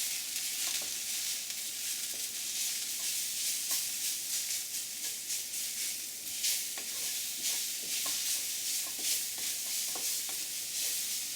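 Sliced onions and spices frying in hot mustard oil in a wok, sizzling steadily while being stirred, with scattered light taps and scrapes of the stirring utensil against the wok.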